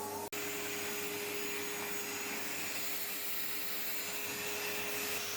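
Ramtons wet and dry vacuum cleaner running steadily, its motor and airflow giving a constant whine, with one very brief dropout near the start. The owner finds the machine slow and weak at picking up even after cleaning its suction pipe.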